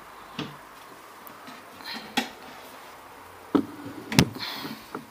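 Tilt-out compartment of a flat-pack shoe cabinet being opened and handled: four separate knocks and clicks, the loudest two a little over three and a half and about four seconds in.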